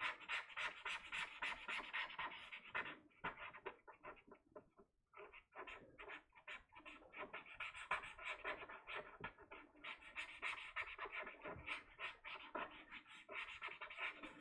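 Tombow brush pen tip scratching across the drawing surface in quick back-and-forth shading strokes, several a second, with a short pause about four to five seconds in.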